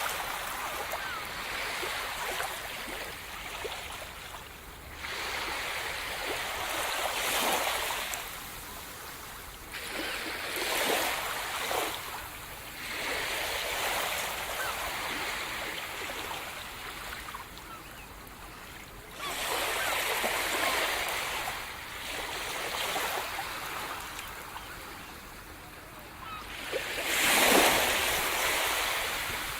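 Sea surf breaking on the shore: a hissing wash that swells and falls back every few seconds, with the biggest wave near the end.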